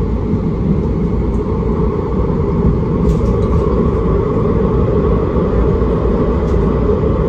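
Steady rumble of a tram in motion, heard inside its passenger compartment: wheels running on the rails and the drive underneath.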